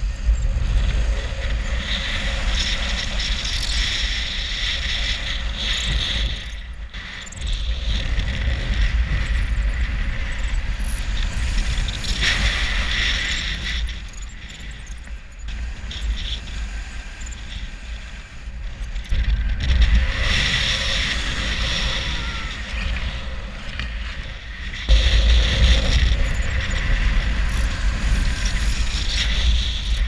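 Strong wind and airflow rushing over the camera microphone during a speed-wing flight: a heavy low buffeting with a hiss above it that swells and eases with the gusts. It drops briefly about seven seconds in, stays quieter for a few seconds past the middle, then surges loud again.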